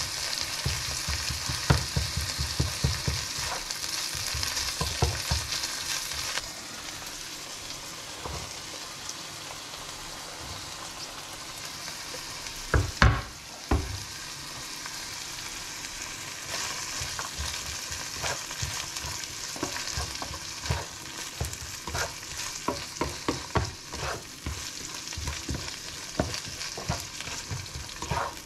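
Ground meat and chopped vegetables sizzling in a nonstick frying pan while a spatula stirs and scrapes, with frequent light knocks of the spatula against the pan. The sizzle drops a few seconds in, and about halfway there is a louder clatter as diced carrots go into the pan.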